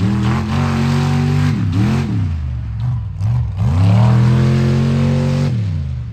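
Lifted mud-bog truck's engine run at full revs, with two quick lift-and-reapply blips about two seconds in. The revs drop low around three seconds, climb back to full revs as the truck takes the jump, and cut off shortly before the end.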